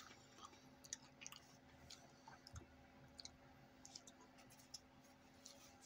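Near silence with faint, scattered crunching clicks of potato chips being chewed, over a low steady hum.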